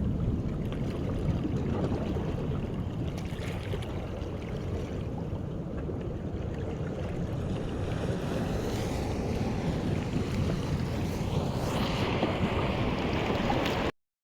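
Wind rumbling on the microphone over surf washing on a beach, with the hiss of a breaking wave swelling about two thirds of the way through. The sound cuts off abruptly near the end.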